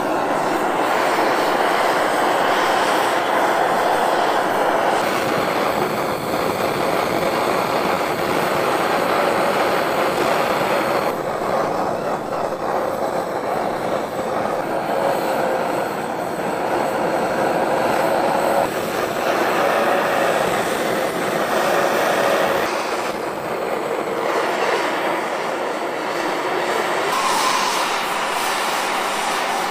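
Handheld cylinder gas torch burning with a steady rushing hiss, its sound shifting a little now and then as the flame is moved along welded steel jig rails. The rails are being heated to relieve the stress from tack welding.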